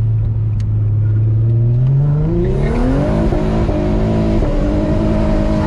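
Twin-turbocharged Infiniti G35's VQ35DE V6, heard from inside the cabin, pulling hard in second gear out of a turn. The engine note holds steady, then climbs over about a second starting some two seconds in, and stays at a higher pitch while a broad rush of noise builds over it.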